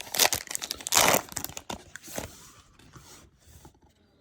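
Foil trading-card pack wrapper being torn open and crinkled: loud rips in the first second or so, then softer rustling that fades out.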